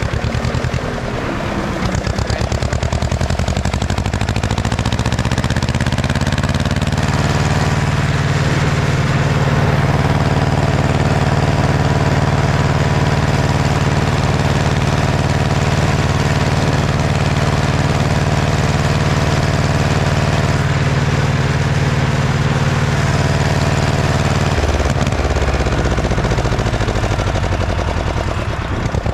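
Ursus C-335 tractor's two-cylinder diesel engine revving up from idle over several seconds, running steadily at high revs, then throttled back down to idle about four seconds before the end.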